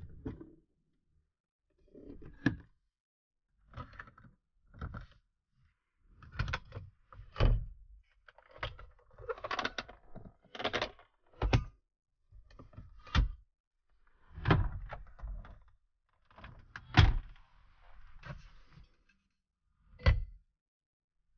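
Plastic interior fittings of a BMW 5 Series Touring (E61) being handled: the centre armrest and storage bin lids clicking open and knocking shut, and a bottle knocking against the console. About a dozen short clicks and thunks, spaced out, the loudest about seventeen seconds in.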